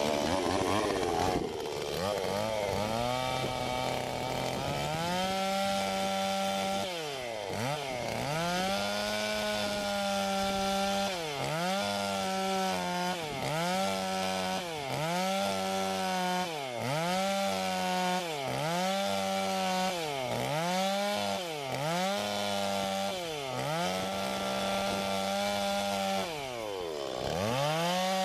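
Petrol two-stroke chainsaw cutting a series of notches into the end of a round timber post to make a pocket for a foot block. It runs at high revs, and from several seconds in its pitch briefly drops and recovers about once a second as the cuts go in.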